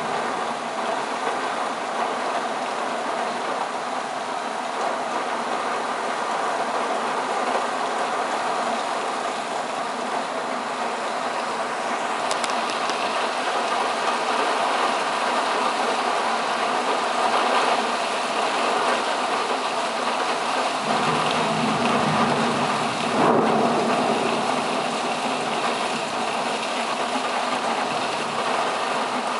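Heavy thunderstorm rain falling steadily. About two-thirds of the way through, a low rumble of thunder rolls in for several seconds.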